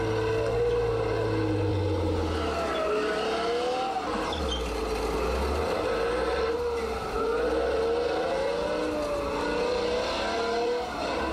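Chieftain tank's Leyland L60 engine labouring and its tracks churning through deep mud, with a whine that wavers up and down over a low rumble. The tank is limping along with one of its gears gone.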